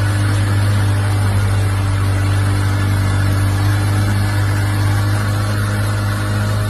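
Enduro outboard motor running steadily at a constant pitch while the boat moves through floodwater, over a steady rushing noise of water.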